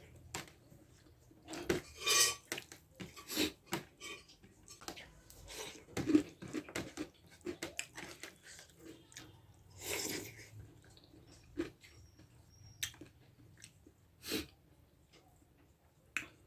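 Close-up mukbang eating sounds: irregular chewing and mouth noises over a meal of dhido and gundruk soup, with short bursts and occasional clinks of a plate and utensils.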